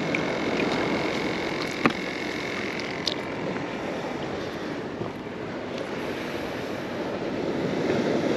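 Steady outdoor noise of wind and sea surf, with a couple of faint clicks.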